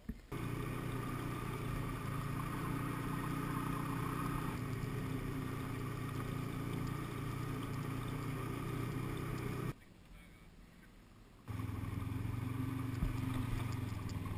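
Snowmobile engine running steadily while under way, heard from the rider's seat. It drops out for about two seconds partway through, then carries on.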